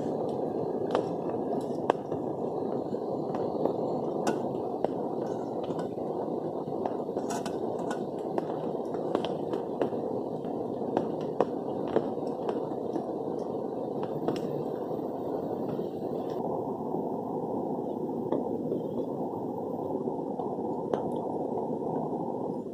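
Gas camping stove burner running with a steady rushing hiss under a kettle heating water to the boil, with scattered light clicks and taps.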